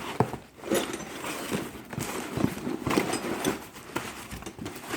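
Loose old metal wrenches knocking and clinking against one another as they are handled, in an irregular run of knocks with a sharp clank near the start.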